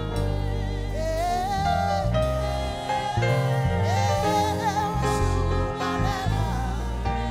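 Live gospel praise music: women's voices singing sustained, wavering lines with vibrato into microphones, over instrumental accompaniment with held bass notes.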